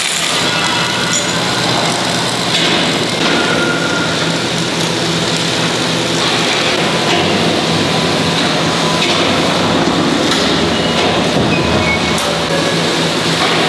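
Steel fabrication shop noise: a MIG welding arc crackling at first, then a steel excavator bucket being hoisted and tilted on crane chains, with a steady machine hum and a few metal clanks.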